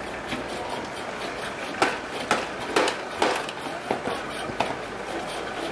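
Fishmonger's cleaver chopping a large saltwater fish into chunks through its backbone: about six sharp chops starting a little under two seconds in, over a steady background hiss.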